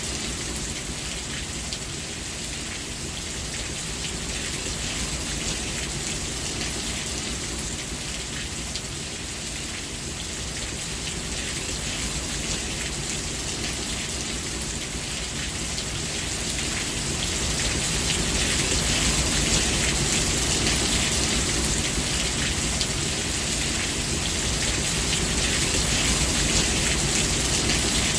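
Steady rain falling and pattering on surfaces, growing a little heavier about two-thirds of the way through.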